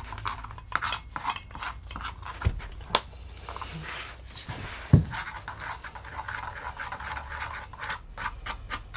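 Dry powder being stirred and scraped by hand in a plastic bucket and a plastic paint tray, a quick run of scratching and rubbing strokes. A few sharp knocks, the loudest about five seconds in.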